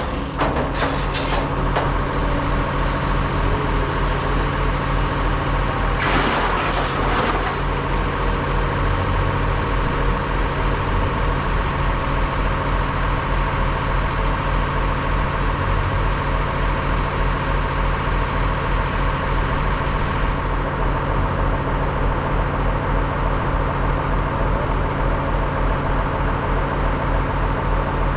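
Heavy diesel engine of scrap-yard shearing machinery running steadily, with a brief louder noisy rush about six seconds in.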